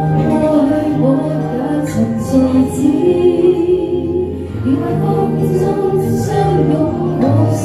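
A woman singing a Chinese pop song into a handheld microphone over a music backing track, her voice amplified through speakers.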